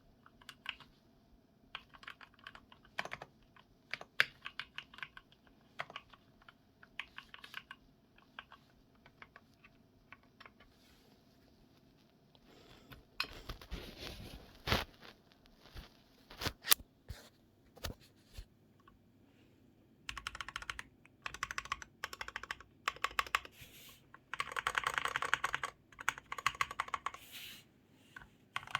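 Typing on a mechanical keyboard fitted with Gateron Milky Yellow linear switches. It starts as scattered single keystrokes, then turns into fast runs of typing in bursts over the second half.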